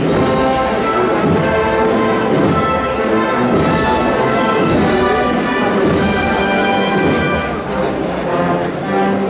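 A banda de música plays a processional march, with brass carrying a sustained melody.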